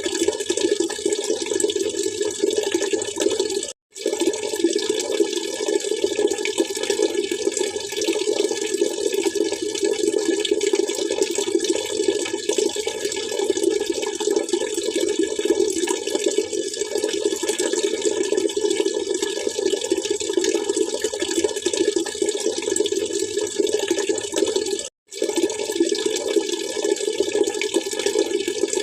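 Steady splashing, trickling water, cutting out sharply for a split second twice, about four seconds in and again about 25 seconds in.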